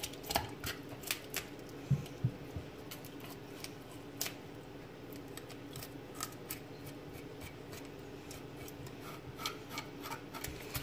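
Knife blade scraping the scales off a whole fish: a run of irregular, short scratchy clicks, thinning out midway and picking up again near the end.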